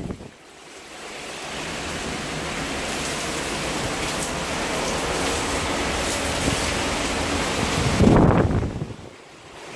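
Hurricane wind driving heavy rain, a steady rushing hiss that builds over the first second. The loudest gust comes about eight seconds in, then it eases briefly near the end.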